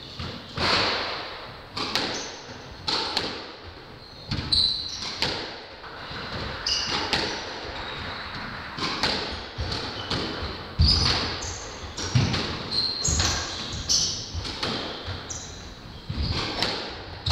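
Squash rally: the ball cracks off the rackets and the court walls about once a second, each hit echoing in the enclosed court, with short high squeaks of court shoes on the wooden floor between the hits.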